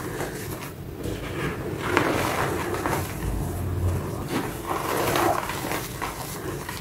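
Dyed reformed gym chalk blocks with a black paste filling, squeezed and crumbled in the hands over loose chalk powder: dry crunching and crumbling in uneven bursts.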